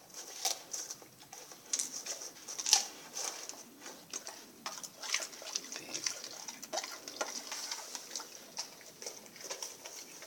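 A Rottweiler eating sardines: irregular chewing and smacking clicks, the loudest a little under three seconds in.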